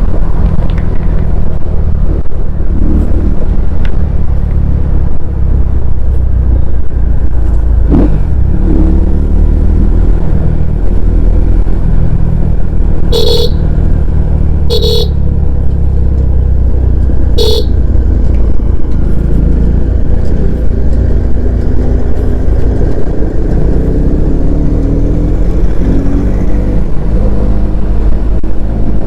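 Bajaj Pulsar N250's single-cylinder engine and exhaust running steadily on the move, a deep, continuous low rumble. About halfway through, a vehicle horn honks three short times.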